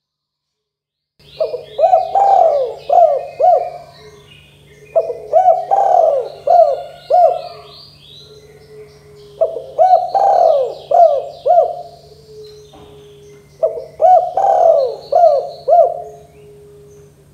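Spotted dove (tekukur) cooing in four phrases of several coos each, about four seconds apart, starting about a second in. Fainter high chirping comes with each phrase, over a low steady hum.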